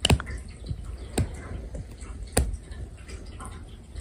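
Three sharp snaps a little over a second apart: an elastic hair tie on a wrist, hooked by a cat's paw and snapping back against the skin.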